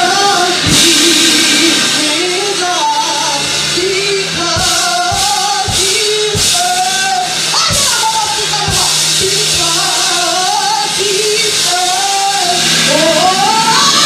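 Live gospel worship song: a young woman sings the lead melody into a microphone over a band, with kick-drum hits scattered through and a held low keyboard or bass note underneath.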